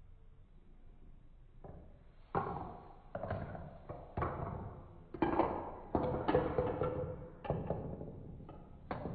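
Marbles clattering down a Trix Tracks plastic marble run: a string of irregular knocks and rattles with short ringing tails, starting about two seconds in and going on until near the end.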